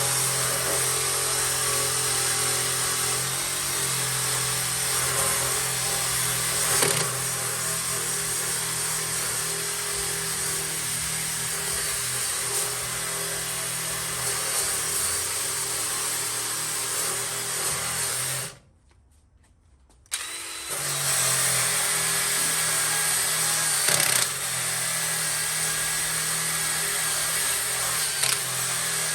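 Electric drill with a paint-and-rust stripping disc running steadily against sheet metal, stripping rust from the car's engine bay. It cuts out for about two seconds roughly two-thirds of the way through, then runs on.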